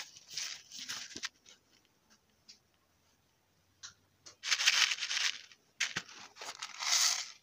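A paper watermelon seed packet crinkling as it is handled, in short noisy bursts with a quiet stretch in between; the loudest come about four and a half seconds in and again near the end, with a single click between them.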